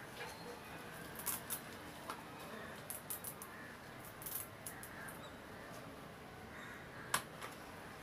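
Hands handling a plastic toy baby doll: scattered small plastic clicks and light knocks over a faint hiss, with one sharper click about seven seconds in.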